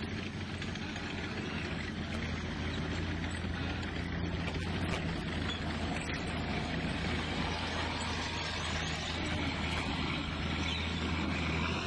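Heavy vehicle engines, like tanks or military trucks, rumbling steadily with a deep low hum.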